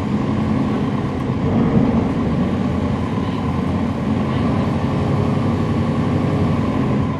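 NABI 40-SFW transit bus heard from on board: its Cummins ISL9 inline-six diesel and ZF Ecolife automatic transmission running steadily, a dense low drone with faint steady tones over it.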